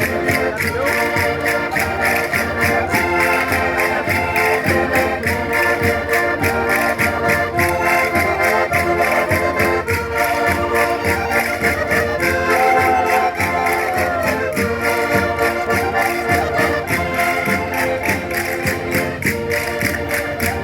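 Concertinas playing a lively traditional folk dance tune with a steady beat.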